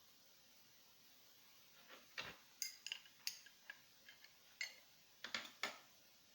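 About a dozen light, sharp metallic clicks and taps, uneven in spacing, starting about two seconds in after near silence.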